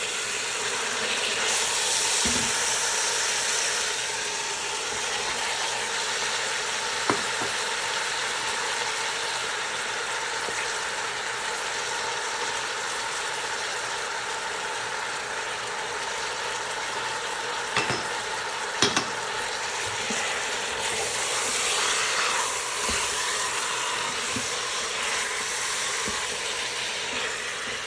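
Food frying in a pan, a steady sizzle, with a few sharp clicks from a utensil against the pan.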